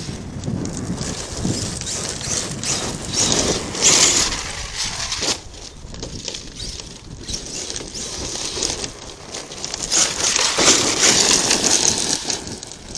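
ARRMA Kraton 8S electric RC truck running over loose dirt, its tyres crunching and throwing dirt, with two louder surges about three to five seconds in and again near ten to twelve seconds.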